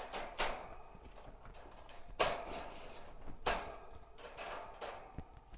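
A handful of light, sharp knocks and clicks about a second apart, the two strongest near the middle, over a low background.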